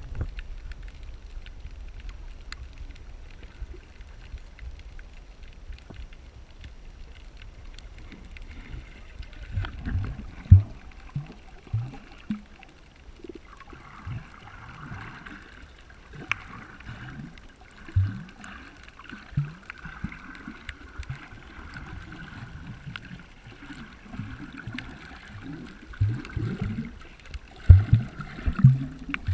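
Water sloshing and gurgling close to the microphone, with a run of loud, short, low glugs that rise in pitch starting about a third of the way in.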